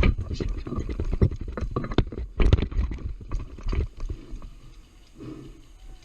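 A rapid, irregular run of close knocks and thumps for about four seconds, then quieter.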